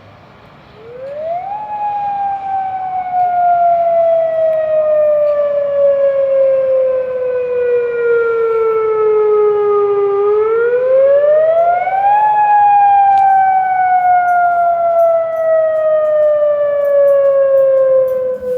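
Tsunami warning siren sounding in its routine monthly test. It starts about a second in with a quick rise in pitch, then falls slowly over several seconds, and about ten seconds in rises again before starting another slow fall.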